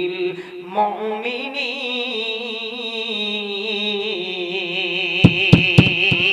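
A man chanting a Quran verse in melodic tilawah style, holding one long wavering, ornamented note on "wa rahmatun". A few sharp thumps come about five seconds in.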